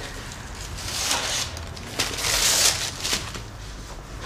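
Paper rustling in two bursts, about a second in and again two seconds in, with a couple of light clicks, as a baguette is taken from the rack and slipped into a paper bag.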